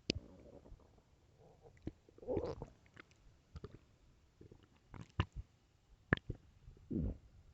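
Human stomach growling: a string of short, sharp gurgling pops, with two longer gurgles a couple of seconds in and near the end.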